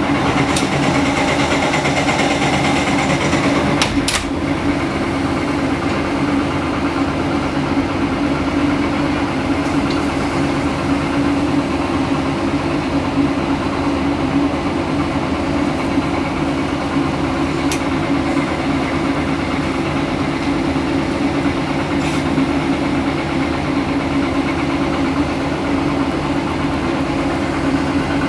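Caterpillar 330D L excavator's C9 six-cylinder diesel engine running steadily while working. Dirt spills into a dump truck bed in the first few seconds, ending in a sharp bang about four seconds in, and a few faint clanks follow as the bucket digs.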